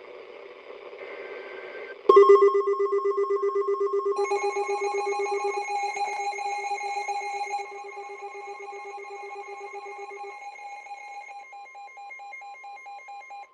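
Electronic alert tone cutting in suddenly about two seconds in: several pitched tones ringing together with a fast trill of about five pulses a second. Higher tones join about two seconds later, and the whole sound fades slowly before stopping abruptly.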